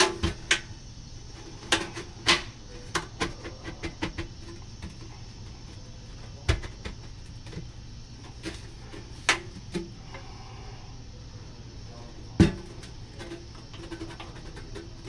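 Metal dryer vent pipe being handled and fitted at its crimped joint: irregular clicks and knocks of sheet metal, about a dozen, the loudest one late on.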